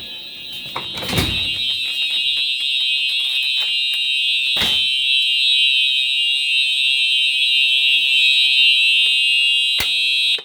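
Fire alarm horn sounding a steady high-pitched tone, getting louder over the first couple of seconds, with a couple of knocks along the way. It cuts off suddenly at the end as the system is reset, just after a click.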